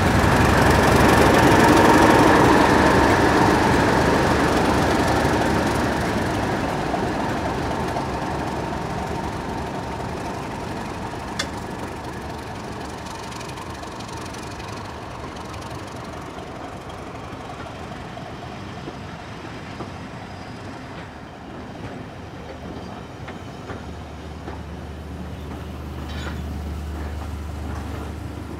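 Heritage diesel-hauled train running on the rails, loudest about two seconds in and then fading steadily as it moves away, with engine noise and a faint steady whine.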